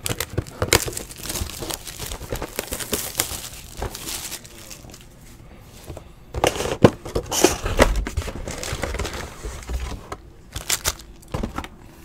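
Plastic wrap crinkling and tearing in irregular bursts, with cardboard handled and a few sharp clicks, as a sealed box of trading-card packs is unwrapped and opened.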